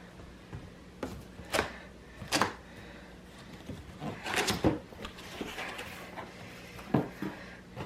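Cardboard box being opened and handled: a series of separate sharp knocks and thuds as the flaps and packing are moved, with a busier stretch of knocking and rustling about four to five seconds in.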